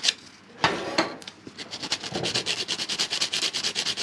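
Fine sandpaper rubbed quickly back and forth on a Whirlpool dryer motor switch's electrical contacts, scouring off the carbon build-up that keeps the motor from getting power. There are a few louder scrapes in the first second, then an even scratching of about eight strokes a second.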